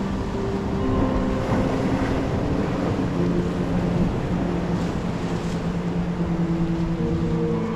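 Wind buffeting the microphone over ocean surf washing against a rock ledge, with a few held tones that change pitch in steps over the noise.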